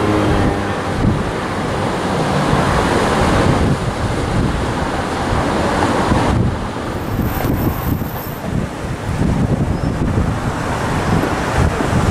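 Wind buffeting the microphone in irregular gusts over a steady rushing noise.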